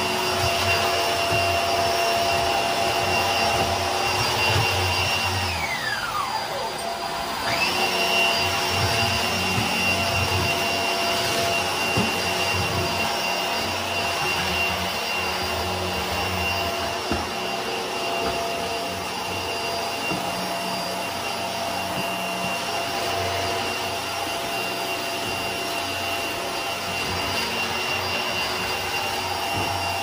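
HART Pet Glide vacuum running on carpet: a steady motor whine over the rumble of the floor head. About six seconds in the whine drops sharply in pitch as the motor slows, then climbs back to full speed a second or so later.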